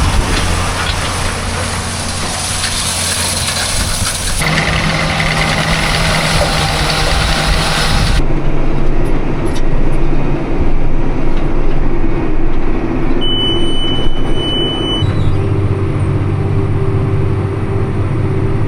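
Tractor engine running steadily under load, pulling a round baler, with abrupt shifts in the mix about four and eight seconds in. About two-thirds of the way through, a steady high-pitched beep sounds for roughly two seconds.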